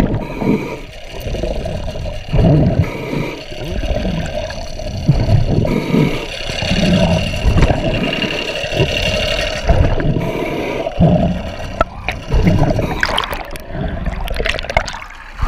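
Water sloshing and gurgling in irregular surges around an underwater camera held just below the surface, over a steady hum. Splashing and bubbling near the end as a diver climbs out up a boat ladder.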